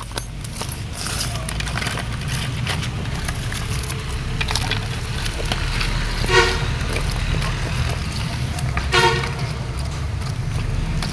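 Two short vehicle horn toots about two and a half seconds apart over a steady low traffic rumble. Light clicking and clatter of pine bark chunks being dropped into a plastic pot comes in the first few seconds.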